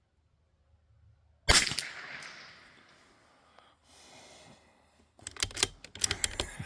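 A single shot from a Bergara B14R bolt-action .22 LR rifle about a second and a half in: a sharp crack with a short fading tail. Near the end comes a quick run of clicks as the bolt is worked.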